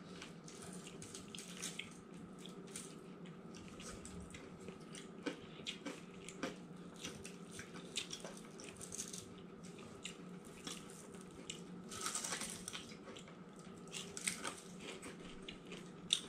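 Faint scattered clicks and crackles over a steady low hum, with a louder, noisier stretch about twelve seconds in.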